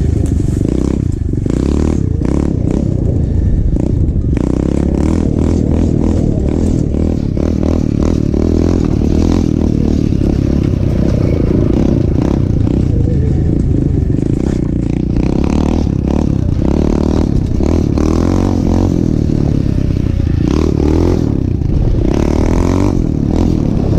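A 125cc pit bike's single-cylinder four-stroke engine running as it rides a rough woodland trail, with frequent scraping and clattering noises throughout.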